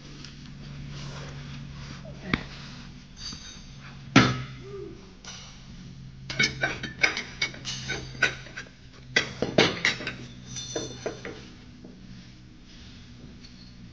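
Metal clinks and clanks of hand tools and parts at the blade spindles of a Kubota Z422 mower deck: a couple of single knocks, then a run of irregular sharp clicks from about six to eleven seconds in, over a steady low hum.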